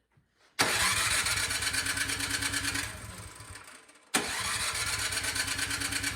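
Craftsman snowblower engine cranked over twice, each run an even, pulsing churn of about two and a half seconds with a short pause between, without catching. It fails to fire even on starting fluid because a fouled spark plug is giving no spark.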